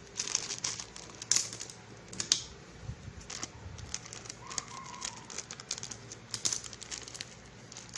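Plastic fish-feed sachet crinkling as it is handled and shaken out, with irregular small clicks and rattles of feed pellets dropping into a plastic bowl.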